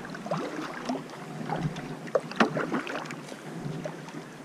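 Shallow river current gurgling and lapping around an inflatable kayak, with scattered small splashes and drips coming irregularly.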